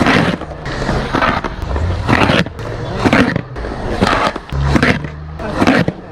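Skateboard wheels rolling with a low rumble, with rough scraping surges about once a second, as of the board grinding.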